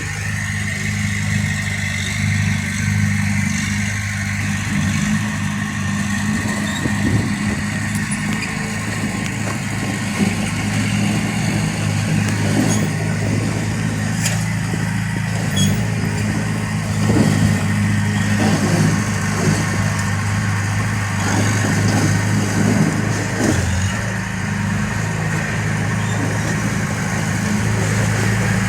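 Bulldozer's diesel engine running steadily at a constant pitch, with a few short metallic clanks around the middle.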